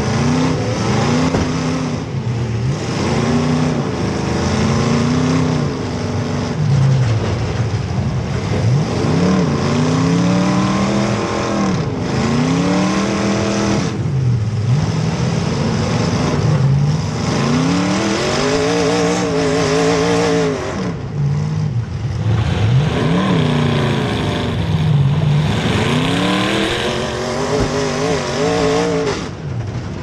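Demolition derby car engines revving hard and dropping off again, over and over, each rev lasting a couple of seconds.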